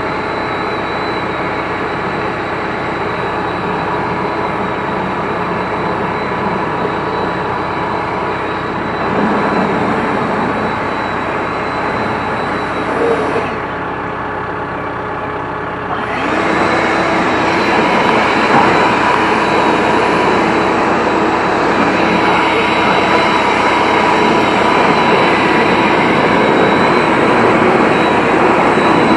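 An engine running steadily under a hissing rush. The hiss cuts out for about two seconds around the middle, then comes back somewhat louder.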